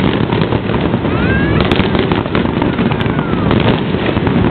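Fireworks display going off: a continuous dense rumble of bursts, with a couple of sharp cracks standing out.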